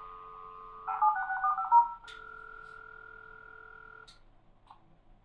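A dial-up modem starting a call, heard through its speaker: a steady dial tone, then about a second in a quick run of touch-tone (DTMF) digits, then a steady ringing tone for about two seconds that ends in a click.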